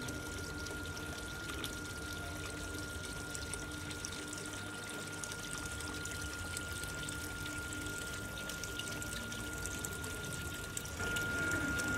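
Water trickling and pouring steadily down a small stream channel built into a moss-and-rock nativity scene, with a thin steady high tone alongside. It gets a little louder about eleven seconds in.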